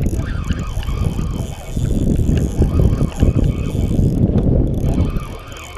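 Spinning fishing reel being cranked while playing a hooked fish, under a strong wind rumble on the microphone that is loudest in the middle.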